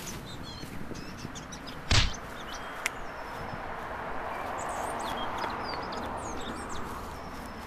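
Small birds chirping in the background, with one sharp, loud thump about two seconds in and a lighter click a moment later.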